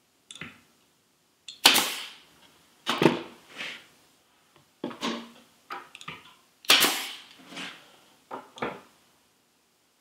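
Pneumatic brad nailer firing nails to tack poplar hive boards together: a series of sharp, irregularly spaced shots, each followed by a short decay, the loudest about a second and a half in and again near seven seconds.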